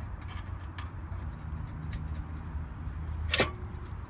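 A new brake rotor being slid over the wheel studs onto the hub, with light clicks and then one sharp metallic clank with a brief ring a little past three seconds in as it goes into place. A steady low rumble runs underneath.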